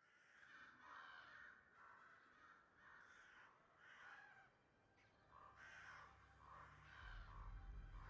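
Crows cawing, faint, a string of harsh calls about one a second. A low rumble comes in about seven seconds in.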